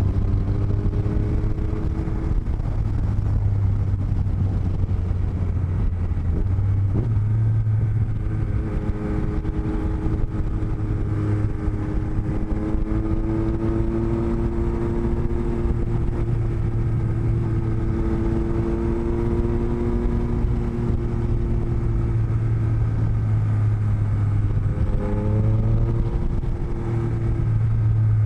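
Motorcycle engine and wind heard from inside a rider's helmet through cheek-lining microphones: a constant low wind rumble under an engine note that drifts slowly up and down, then climbs sharply near the end as the rider accelerates.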